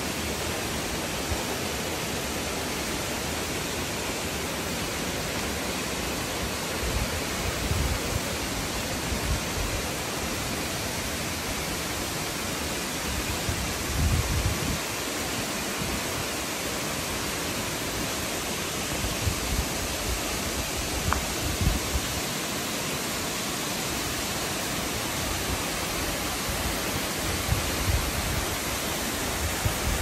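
Steady rushing roar of a tall waterfall plunging into its pool, with a few brief low rumbles now and then.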